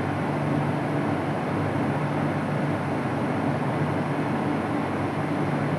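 Steady drone of running steam-plant machinery at a boiler: a loud low hum of several steady tones under a rushing noise, unchanging throughout.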